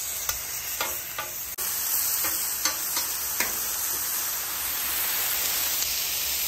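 Raw diced chicken sizzling as it is spread over a hot, oiled Blackstone steel griddle, a steady frying hiss that grows louder about a second and a half in. A few light taps from the metal spatula and the pieces landing come in the first few seconds.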